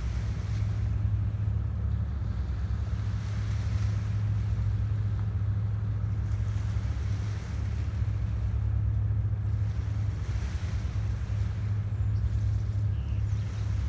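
Small waves lapping on a pebble beach under a steady low rumble.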